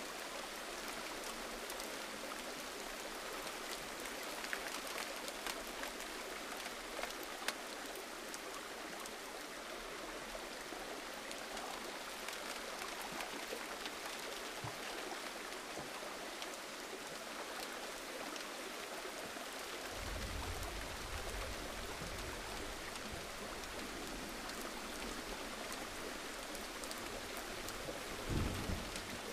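Steady gentle rain, with individual drops ticking now and then. A low rumble joins in about two-thirds of the way through, and there is a brief low burst near the end.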